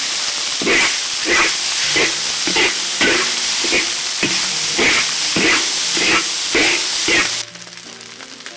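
Food sizzling loudly in a hot pan while a ladle stirs and scrapes it in a steady rhythm, under two strokes a second. The sizzle cuts off abruptly about seven seconds in.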